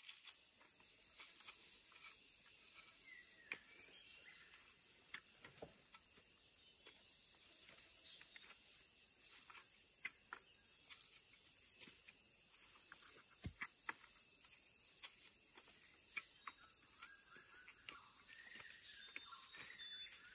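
Near silence: faint outdoor ambience with scattered light clicks and a few faint bird chirps, about two and a half seconds in and again near the end.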